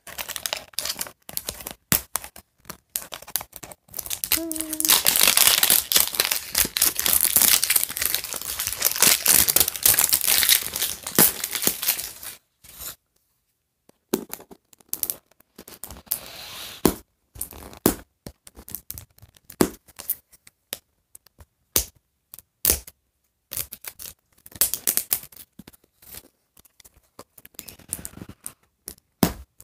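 Plastic wrapping being torn and peeled off a Hairdooz doll's bottle-shaped package, crinkling and crackling, with a dense stretch of tearing for several seconds early on. After a brief pause, scattered crinkles and clicks follow as the plastic is handled.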